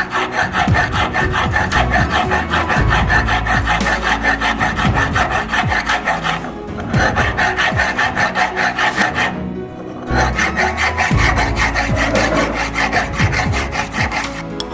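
Hand filing of a metal ring blank cut from an old anvil: fast, even back-and-forth rasping strokes that pause briefly twice, with background music underneath.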